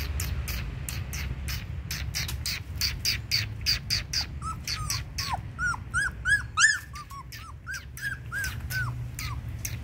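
Puppy whimpering: a run of about a dozen short, high whines that rise and fall, starting about four and a half seconds in. A fast, steady chirping runs underneath.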